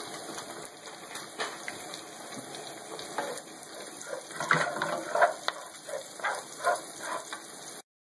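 Diced pancetta, garlic and sun-dried tomatoes sizzling in rendered fat in a frying pan, a steady hiss. From about halfway, a utensil stirring and scraping through the pan in a run of irregular knocks.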